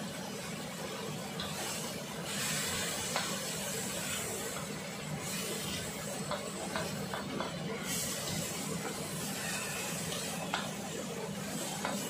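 Vegetables sizzling in a hot wok as they are stir-fried, with scattered taps and scrapes of a wooden spatula against the pan.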